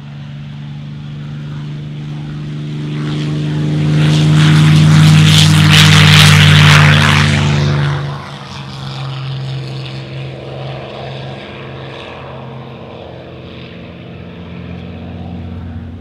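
P-51 Mustang's Packard Merlin V-12 and propeller at full takeoff power, building to a loud rasping peak as the aircraft passes close on its takeoff run. It drops off suddenly a little past halfway, then carries on as a quieter steady drone as it climbs away.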